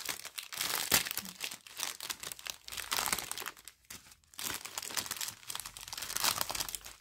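Clear plastic packaging crinkling and crackling in the hands as a pouch is opened and the small zip-lock bags of diamond-painting drills inside are pulled out and sorted. There is a sharper crackle about a second in.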